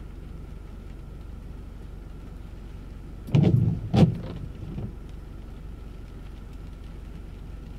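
Steady low hum inside a parked car's cabin, broken a little past halfway by two loud, brief low bumps close together, then a smaller one.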